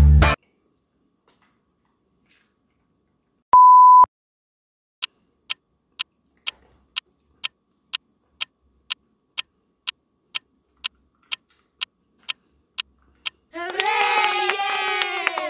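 A single steady electronic beep lasting about half a second, then a clock-ticking sound effect ticking evenly about twice a second for roughly eight seconds. Near the end comes a short sound with wavering, sliding pitch.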